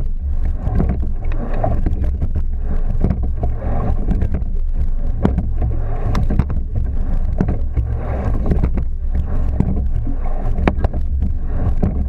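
Racing rowing boat under way: water rushing along the hull under a steady low rumble, with repeated sharp clicks and knocks of the oars and rigging as the crew takes strokes.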